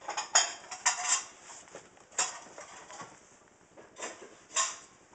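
A few short rustling, clattering noises without a clear pitch: one near the start, one about a second in, one a little over two seconds in, and two around four seconds in.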